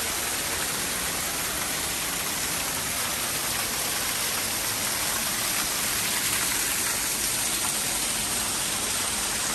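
Water pouring over a small stone-built waterfall and splashing into a pool: a steady, even rush of falling water.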